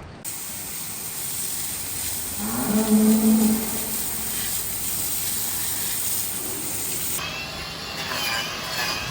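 A dairy cow moos once, about two and a half seconds in, over a steady hiss. Music starts near the end.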